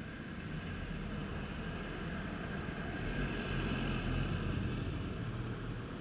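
E57 motor siren's rotor coasting down after the fire-alarm signal: a steady low whir with faint high tones. A rumbling swell builds to its loudest about four seconds in and eases off again.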